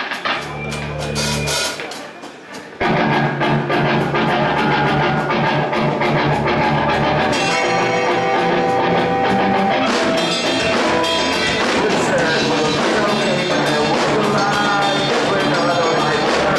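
Live rock band starting a song: a couple of seconds of sparse, quieter low notes, then the full band with drum kit and guitars comes in loudly and suddenly about three seconds in and plays on at a steady beat.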